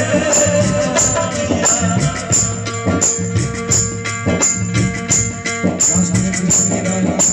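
Live Bhojpuri stage-band music through the PA: sustained keyboard chords over a steady beat, with a jingling tambourine-like hit about every half second.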